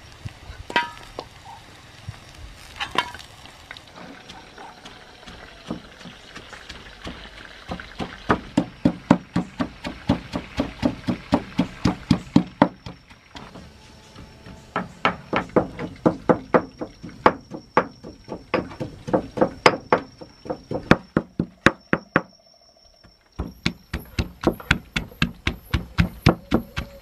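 Stone mortar and pestle pounding chillies and shallots for sambal: regular strikes, about three a second, in long runs broken by two short pauses. Two sharp knocks come in the first few seconds, before the pounding starts.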